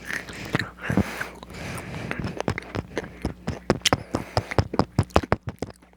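Crisp, irregular crunching of fried potato fries being bitten and chewed close to the microphone, the crackles coming thick and fast in the second half.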